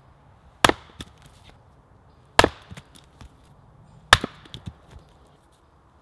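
Log-splitting axe striking a log on a wooden chopping block three times, about every second and three-quarters. Each blow is a sharp crack followed by a few lighter knocks.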